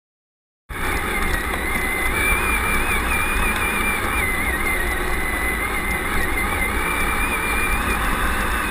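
Traxxas Summit electric RC truck driving, heard from a camera mounted on it: a steady whine from its motor and gears that wavers slightly in pitch with the throttle, over a low drivetrain and tyre rumble. It cuts in suddenly under a second in.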